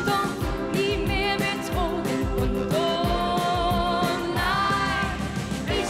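A woman singing a Schlager pop song over a band with a steady beat, holding long notes with vibrato.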